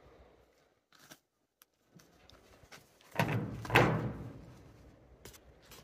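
A brief, loud burst of rustling and thudding about three seconds in, with a second peak just after, then a few faint clicks.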